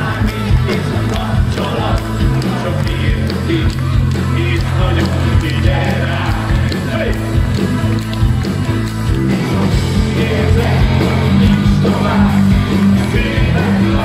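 Loud live rock music played through a stage PA by a full band of electric guitar, bass, keyboards and drums, with a male singer.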